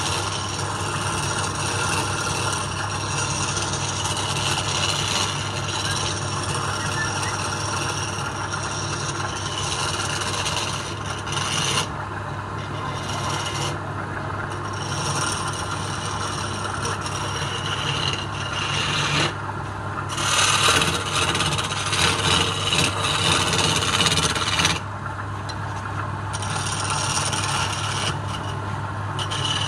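Flat steel scraper cutting palm wood spinning on a lathe: a steady rasping scrape over the constant hum of the lathe's motor. The scraping breaks off briefly several times.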